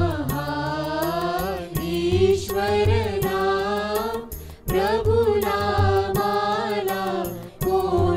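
Devotional song: a single voice sings long, held and gliding phrases over a steady low beat and instrumental backing, pausing briefly between phrases.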